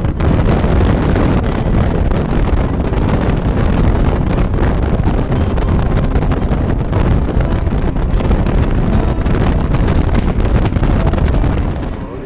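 Wind buffeting the microphone out of a moving car's side window, mixed with the car's road noise. It drops sharply near the end.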